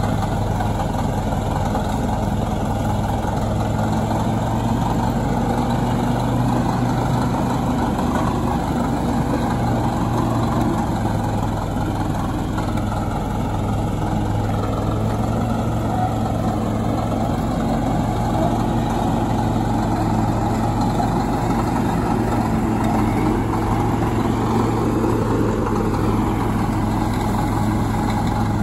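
Old crawler bulldozer's engine running steadily as the dozer drives forward on its tracks.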